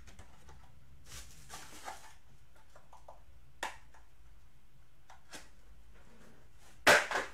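Hands handling a Panini Obsidian trading-card hobby box and its foil pack: soft rustling, a couple of light taps, then a louder sharp noise of a few quick knocks near the end.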